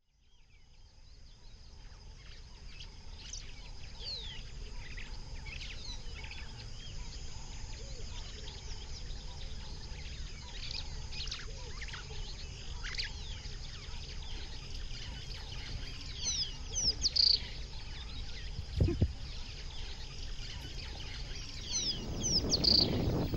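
Birds chirping outdoors: many short descending calls over a low steady rumble, fading in at the start. Louder calls come twice, about 17 and 22 seconds in, with a single low thump between them.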